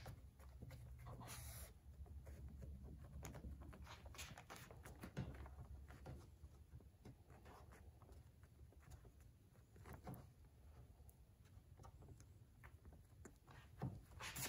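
Near silence with faint, scattered rubbing and light taps: fingers pressing a new rubber weatherstrip seal down onto adhesive on a car hood's underside.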